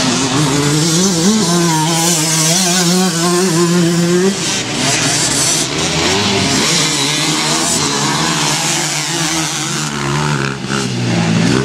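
Motocross motorcycles racing on a dirt track, their engines revving up and down as they go by. One engine note climbs about a second in and holds for a few seconds, then several bikes' engines overlap.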